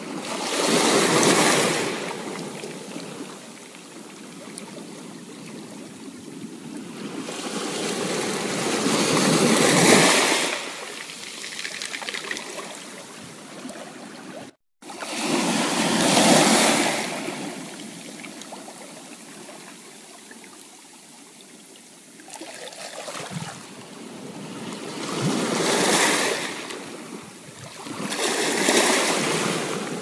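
Small ocean waves breaking and washing up a sandy beach, the surf swelling and fading five times. The sound cuts out for a split second about halfway through.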